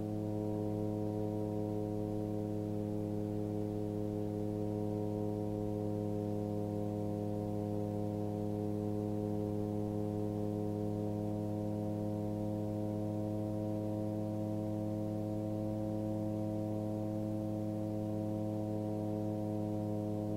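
Titan Tornado light aircraft's engine and propeller droning steadily in cruise flight: an even, muffled hum that holds one pitch throughout.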